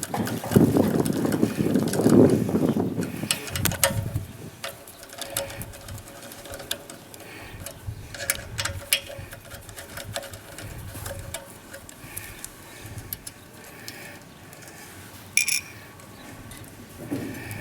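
Scattered small clicks and taps of hand tools working on an electric motor's terminal box, with louder rustling handling noise in the first few seconds.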